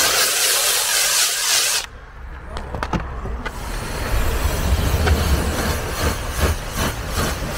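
Pressure-washer foam cannon spraying snow foam onto a car wheel with a loud hiss, cutting off suddenly about two seconds in. After a short lull with a few clicks, a low rumbling hum sets in while a wash mitt rubs over the foamed wheel.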